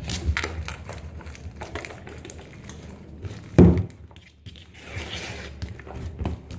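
Hands mixing and handling slime ingredients on a tabletop: scattered small taps and clicks, with one heavier thud about three and a half seconds in.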